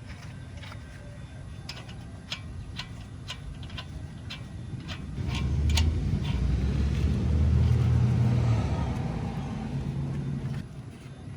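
A run of sharp metallic clicks, as lug nuts are worked onto the wheel studs. About five seconds in, a motor vehicle's low engine rumble rises, holds and then drops away suddenly shortly before the end, and is the loudest sound.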